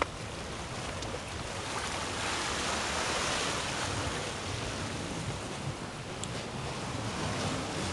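Sea surf washing against the rocks below, a steady hiss of water that swells for a couple of seconds near the middle.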